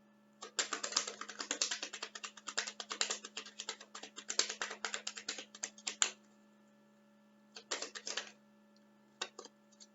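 A rapid run of light clicks lasting about five and a half seconds, then two short flurries of clicks near the end, over a faint steady hum.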